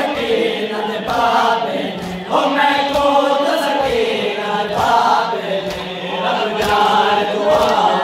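A crowd of men chanting a noha, a Shia Muharram lament, in sung phrases, with scattered slaps of hands striking chests in matam.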